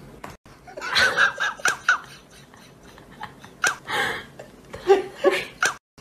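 A person laughing and giggling in several short bursts.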